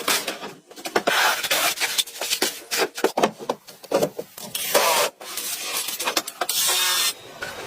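Irregular scraping and rubbing, broken by many short knocks and clicks, as of materials being handled and worked by hand.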